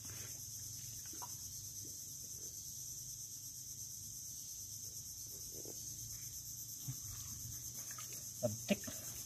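Steady high-pitched drone of insects, typical of a cricket chorus. Over it come a few faint wet sounds of an arm groping in a mud burrow, and two short sharp sounds near the end.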